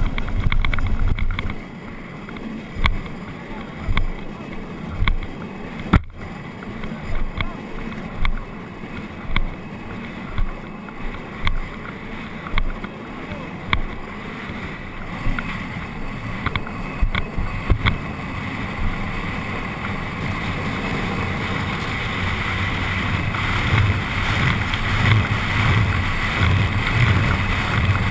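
Carrilana, an engineless gravity racing cart, rolling down an asphalt road after a loud push-off in the first second and a half. Its small hard wheels rumble, with sharp knocks and rattles over bumps, and from about two-thirds of the way through a steady rush of wind and road noise grows louder as it picks up speed.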